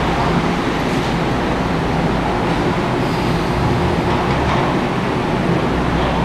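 BMW R1100 boxer flat-twin engine idling steadily.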